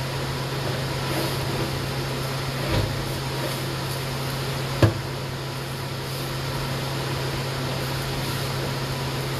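Steady machine hum with a hiss, broken by a soft knock about three seconds in and a sharper, louder knock about five seconds in.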